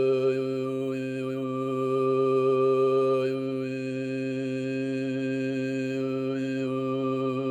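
Tuvan-style throat singing (overtone singing): a steady low drone with a thin whistling overtone melody above it. The overtone steps between a few pitches, shifting several times.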